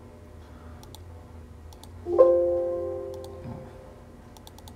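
A single electronic chime about two seconds in: several pure tones sounding together with a sharp start, ringing out and fading over about a second and a half. Faint sharp clicks, like a computer mouse, come before and after it.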